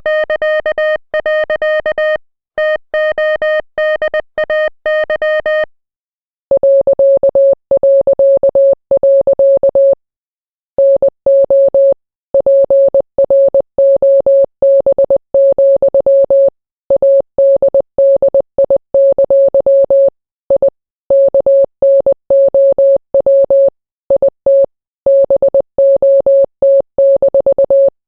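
International Morse code sent as beeping tones, short and long beeps keyed rapidly on and off. For the first few seconds the beep is higher and buzzier; after a short gap about six seconds in, it switches to a slightly lower, purer beep.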